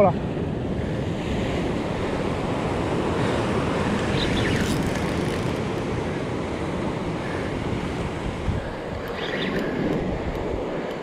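Ocean surf washing against a rock ledge, with wind buffeting the microphone.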